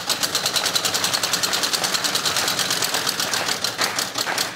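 Game-show prize wheel spinning, its metal pegs clicking rapidly against the pointer flapper in a fast, even ratchet that slows slightly as the wheel loses speed.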